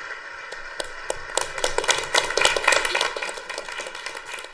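A small group clapping and applauding a correct answer, building to a peak about halfway through and then thinning out.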